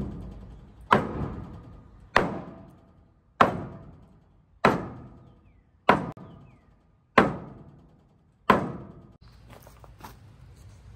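A 10-pound sledgehammer striking the flatbed's pressure-treated deck boards to drive them over into place: seven heavy, evenly spaced blows about a second and a quarter apart, each ringing briefly.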